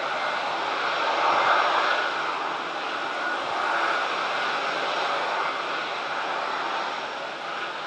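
Jet engines of a small twin jet with tail-mounted engines on final approach, heard from the ground as a steady rushing noise.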